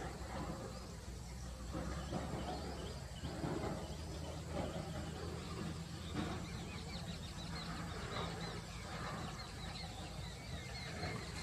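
Forest ambience: a steady low hum like an idling vehicle engine, with many short bird chirps and occasional low voices.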